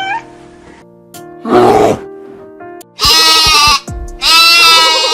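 A farm animal bleating: two long, wavering calls, the second longer, over steady background music. A shorter, rougher sound comes about a second and a half in.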